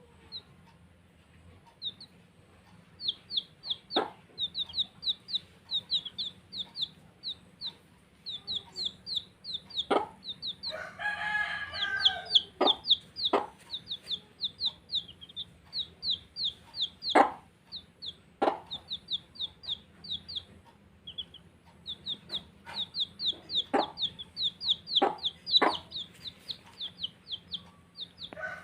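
Baby chicks peeping in quick runs of short, high, falling notes, several a second, with a few sharp clicks in between. About eleven seconds in, a longer, lower call lasting over a second sounds over the peeping.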